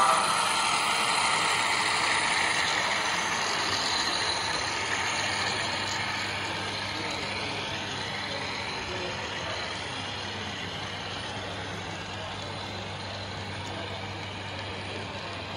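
HO scale model freight train rolling past: steady running noise of wheels on track with a low hum, slowly fading as the locomotive moves away.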